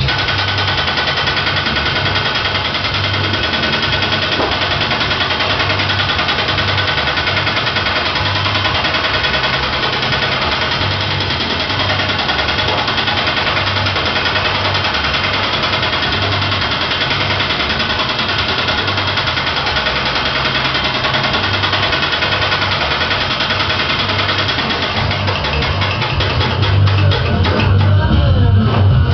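Power hammer beating a sheet-metal panel with a fast, continuous rattle of blows as the panel is worked through its dies. Guitar and bass music plays along with it.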